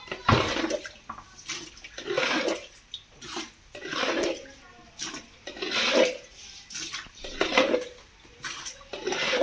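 Muddy floodwater being bailed off a floor with a plastic mug and emptied into a plastic bucket, in repeated splashes about once a second.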